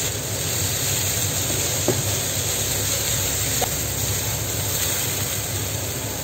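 Shirataki fried rice sizzling in a hot wok with a steady frying hiss, as it is stirred and turned with a silicone spatula.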